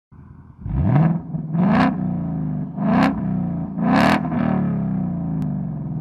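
Car engine starting up, revved sharply four times, then settling back toward idle.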